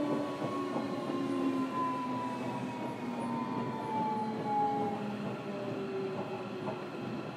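Onboard running sound of a JR Kyushu 305 series electric train, heard inside a motor car: a rumble of wheels and running gear with the traction motors' whine gliding steadily down in pitch as the train slows.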